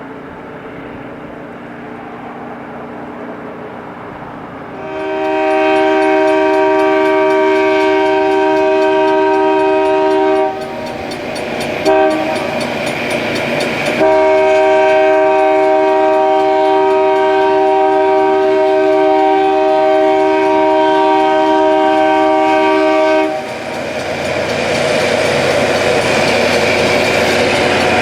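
Train air horn sounding several notes at once: a long blast, a brief toot, then a longer blast, over the rumble of an approaching train. After the horn stops, a loud steady rushing noise of the passing train takes over.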